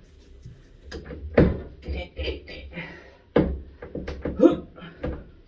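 A wrench clanking and knocking against a stuck drain pipe in a sink cabinet as it is fitted and worked back and forth, several sharp knocks, mixed with muttering and strained grunts.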